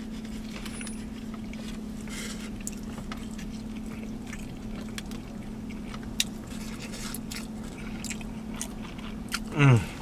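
Close-up chewing and mouth clicks over a steady low hum in a car cabin. Near the end, a man gives one loud hummed 'mmm' that falls in pitch.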